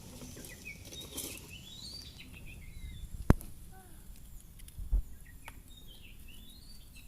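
A bird singing twice, each phrase a quick run of high gliding notes. A sharp knock comes about three seconds in and a dull thump near five seconds.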